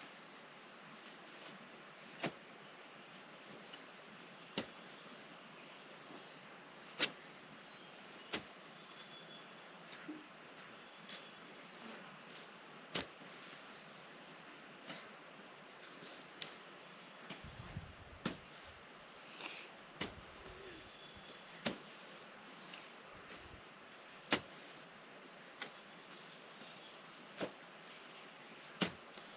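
Crickets and other insects making a steady high-pitched drone, with a sharp knock every two seconds or so from a hoe striking the soil as a field is dug by hand.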